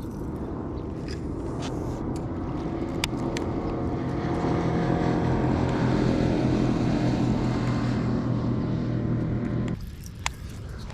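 A boat motor running steadily with a low hum. It grows louder over several seconds, then cuts off sharply near the end. A few light clicks sound over it.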